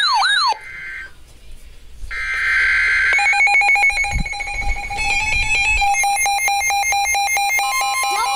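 Emergency Alert System broadcast starting a new alert: a warbling siren-like tone stops about half a second in, then about two seconds in a one-second burst of digital data screech (the SAME header), followed from about three seconds in by a steady, fluttering alert tone, with a second higher tone joining near the end.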